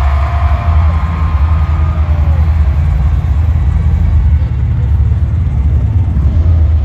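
Loud, deep rumbling sound effect from the show's intro video, played over the concert PA and dominated by heavy bass. A few thin gliding electronic tones fade out in the first two seconds or so.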